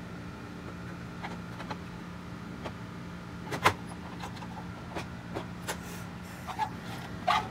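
Scattered small clicks and taps of 3D-printed plastic model parts being handled and fitted together, the sharpest about three and a half seconds in and a few more near the end, over a steady low hum.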